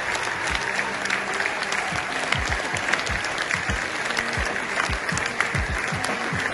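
Large audience applauding, a dense, steady clatter of many hands clapping, over background music with a deep bass beat about twice a second.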